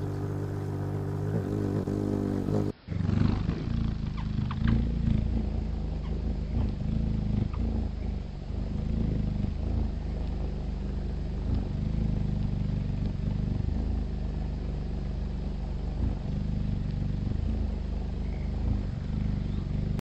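Hummingbird wings humming as it hovers: a low, steady buzzing hum, broken by an abrupt change in sound about three seconds in.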